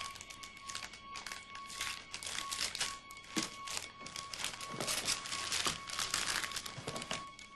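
Wrapping paper being torn and crinkled as a present is unwrapped, in many irregular rustling bursts.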